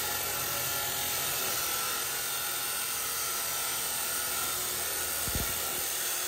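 Laxton LX249 14-inch (355 mm) abrasive cut-off machine grinding through a 3 mm-wall steel pipe, its brushed motor running steadily under load with a continuous grinding hiss. A brief low thump comes a little over five seconds in.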